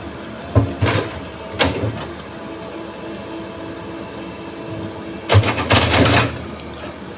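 Backhoe engine running steadily, with sharp metallic clanks and knocks from the working machine: a few single ones in the first two seconds and a rapid cluster about five seconds in.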